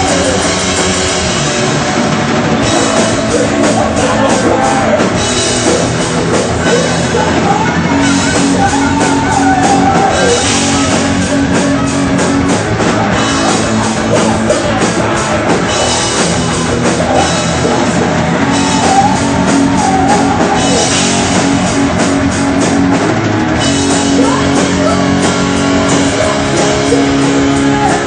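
Heavy metal band playing live: distorted electric guitars and bass over a fast rock drum beat with crashing cymbals, and a man singing at times.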